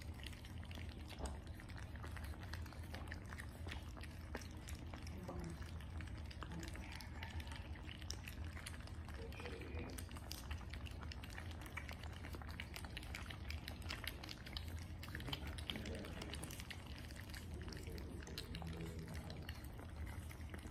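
A litter of French bulldog puppies eating wet raw food from a shared bowl: a continuous mass of smacking, lapping and chewing clicks over a low steady hum.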